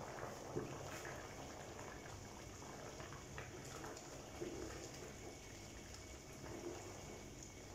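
A pot of fumbwa stew, thick with peanut butter, bubbling at a boil while it is stirred with a wooden spatula, with a few faint knocks of the spatula against the aluminium pot.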